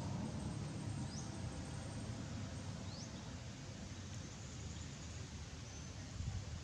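Outdoor background: a steady low rumble with faint high steady tones, and two faint quick rising chirps, about half a second and three seconds in.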